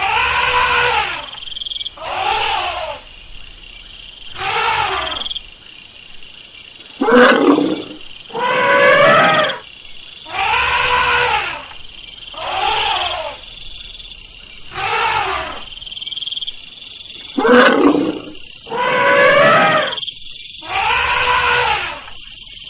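Elephant calling over and over, about eleven loud calls roughly two seconds apart, each about a second long and falling in pitch.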